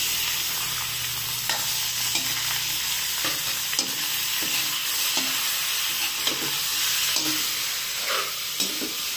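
Raw chicken pieces sizzling in hot oil with ginger, garlic and shallots in a stainless steel wok, as a metal utensil stirs and turns them, scraping and clicking against the pan now and then. The chicken has just gone in to sear.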